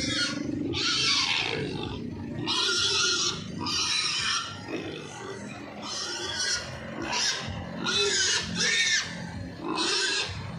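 Domestic pigs squealing: a string of about nine short, shrill squeals, with lower grunting between them.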